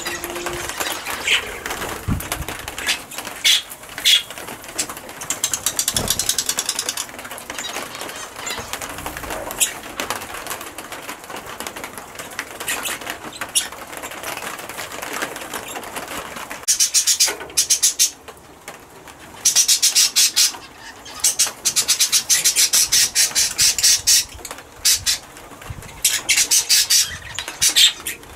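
Red-rumped parrots moving about: scattered sharp clicks and taps, then from a little past halfway, repeated bursts of rapid, high-pitched wing flapping.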